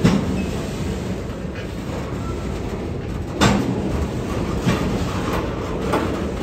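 Freight train of trash-container flatcars rolling past: a steady low rumble of steel wheels on the rails, broken by four sharp knocks, one right at the start, one about three and a half seconds in and two more near the end.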